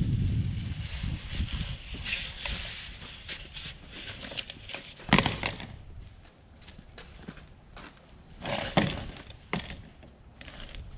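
Corrugated plastic drain pipe being dragged over grass and dirt into a trench: an uneven rustling scrape with handling noise at first, and a couple of sharper knocks about five and nine seconds in.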